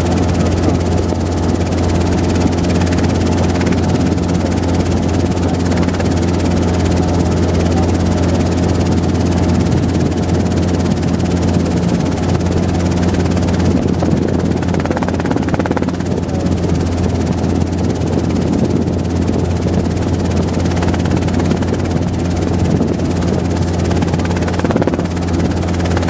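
Robinson R22 helicopter in flight: the steady drone of its two-blade main rotor and piston engine, a strong low hum with held tones above it, unchanging throughout.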